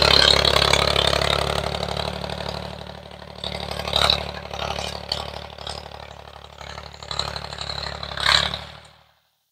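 Long 350 tractor engine running steadily while pulling a disc harrow over plowed ground, growing fainter as it moves away. Sharp clanks come about four seconds in and again near the end, and the sound cuts off suddenly.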